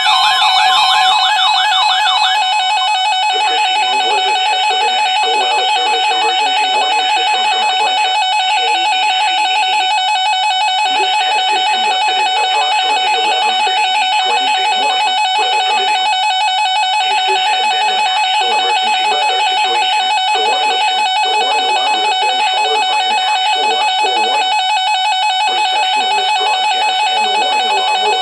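Music: a steady held high tone runs over a busier, plucked-sounding lower part that pauses briefly a few times, after a warbling siren-like sweep fades out in the first couple of seconds.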